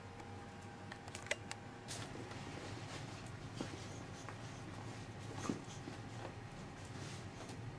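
Boxer and Pomeranian play-wrestling: soft scuffling with a few sharp clicks and knocks, the loudest about a second in and again about five and a half seconds in.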